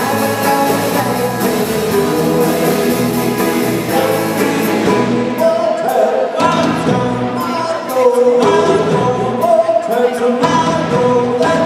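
Live rock band playing a song: electric guitars and drum kit with a sung lead vocal, drum hits standing out more from about halfway through.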